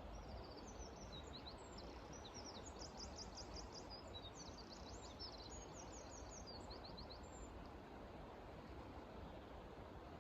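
A songbird singing faintly: rapid series of high, quick notes and trills that stop about three-quarters of the way through. Underneath is a steady low background noise.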